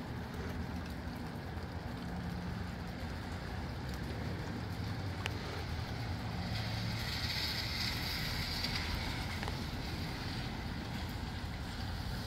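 Wind blowing steadily, with a rumble on the microphone. About six and a half seconds in, a louder rush swells for about three seconds, then eases.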